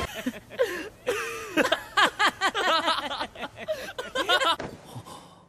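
Men laughing, a run of chuckles that trails off about a second before the end.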